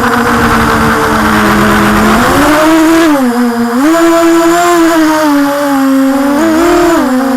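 Storm SRD250 V3 racing quadcopter's brushless motors and propellers whining in flight. The pitch shifts with the throttle: it climbs about two seconds in, drops and recovers around the middle, and dips briefly near the end.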